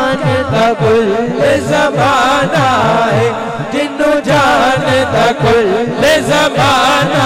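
A man singing an Islamic devotional durood into a handheld microphone, in long ornamented phrases that waver in pitch, amplified over a sound system. Beneath the voice a low sound pulses, repeating a little under twice a second.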